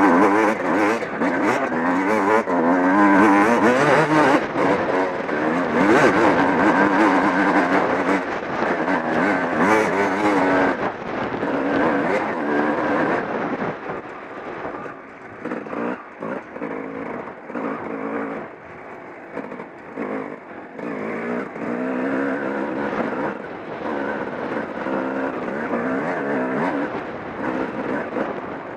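Off-road motorcycle engine being ridden, its pitch rising and falling with the throttle. It runs hard under load for about the first ten seconds, eases off to a quieter, lower run for several seconds, then picks up again near the end.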